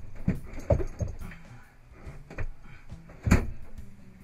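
Knocks and thumps of a metal-cased marine water heater being shoved and wiggled into a tight engine-room space, about five irregular bangs with the loudest near the end.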